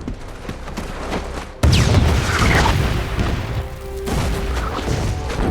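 Battle sound mix of scattered gunfire, with a sudden loud explosion about a second and a half in that leaves a heavy rumble, over a film score.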